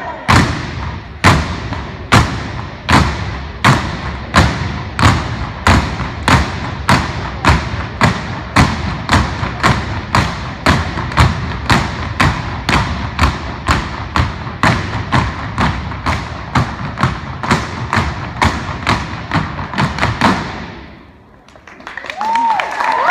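Step team stomping and clapping in unison, a steady percussive beat of about two strikes a second echoing in a gymnasium, stopping about 20 seconds in. A few voices cheer near the end.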